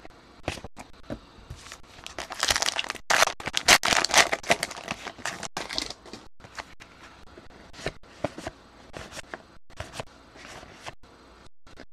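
Trading-card pack wrapper crinkling and tearing as it is opened, loudest from about two to six seconds in. Afterwards come light clicks and rustles of the cards being handled.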